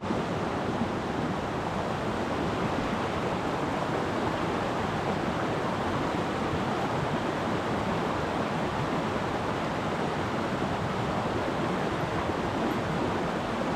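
A creek's rushing water, a steady even rush with no breaks.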